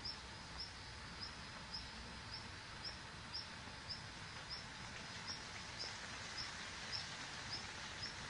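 A small animal's short, high chirp repeated evenly about twice a second over a steady background hiss.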